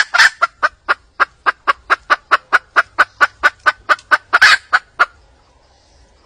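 A wild hen calling in a fast, even series of short clucks, about four or five a second, with a longer, louder call at the start and another near the end of the run; the calls stop abruptly about five seconds in.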